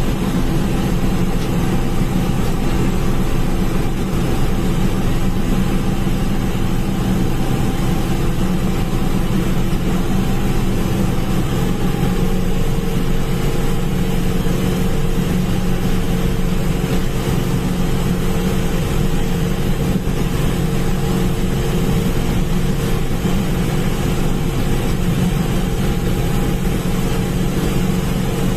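A TRM M6 sugarcane harvester's 200 hp engine and machinery running steadily under load while cutting cane, heard from the operator's cab.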